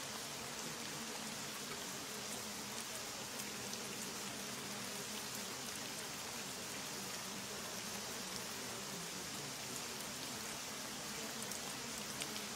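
Steady rain falling: an even hiss with faint ticks of single drops.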